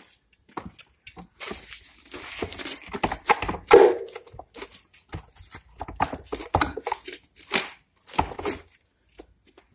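Cork oak stump cracking and creaking as a chainsaw-cut split is pried apart by hand, wood fibres snapping and tearing in irregular cracks. The loudest crack, with a short creak, comes about four seconds in, and the sharp cracks stop shortly after eight seconds.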